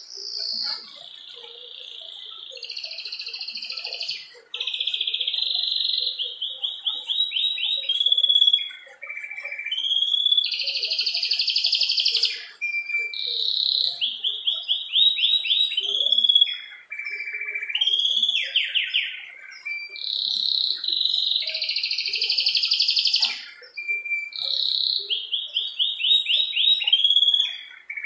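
Domestic canary singing a long, almost unbroken song of fast rolling trills and gliding notes, with a few harsh buzzy phrases and only brief pauses.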